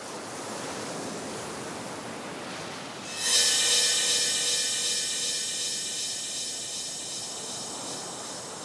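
Dramatic soundtrack underscore: a soft, rising hiss, then about three seconds in a bright, shimmering high chord strikes and slowly fades.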